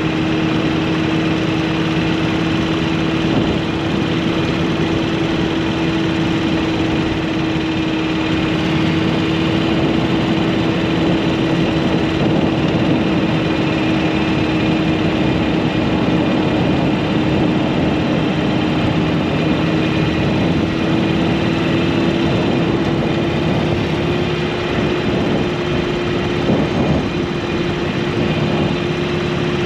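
Motorcycle engine running steadily at cruising speed, its pitch edging up slightly about two-thirds of the way through, over steady wind and road noise.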